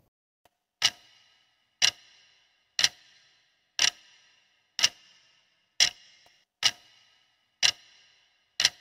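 Clock-tick sound effect marking a quiz countdown timer: one sharp tick each second, nine ticks in all.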